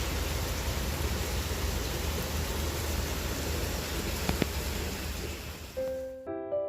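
Steady hissing noise with a low rumble underneath and a single brief tick about four seconds in; the noise cuts off near the end as gentle piano music begins.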